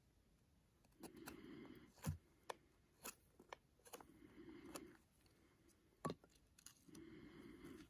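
Faint knife strokes shaving a small wooden wedge to a point: three scraping cuts, each under a second long, about three seconds apart, with a few sharp clicks of wood and blade between them.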